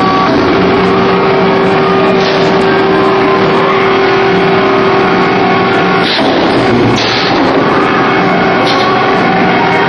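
Column-type semi-automatic multi-spot welding machine at work: a loud steady machine noise with a few held tones, broken by two sharp bursts about six and seven seconds in.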